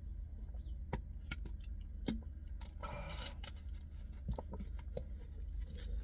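Small clicks and knocks of a plastic drink bottle and food packaging being handled, with a short rustle about three seconds in, over a steady low hum inside a car.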